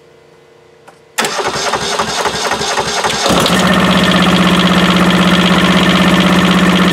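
Kubota Z482 two-cylinder diesel engine cranked by its starter about a second in, catching after about two seconds and then running at a steady speed. The start comes as air is bled from its fuel system.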